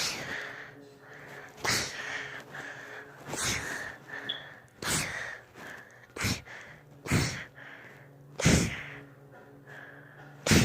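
A girl sneezing over and over in a fit of about seven or eight sneezes, one every second and a half or so.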